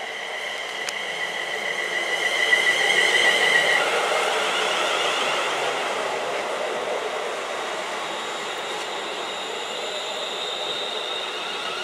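ScotRail Class 380 electric multiple unit running into the platform. Its traction motors whine in two steady high tones that grow louder, then drop in pitch about four seconds in as the front passes. The whine goes on under the rumble of the wheels as the carriages roll by.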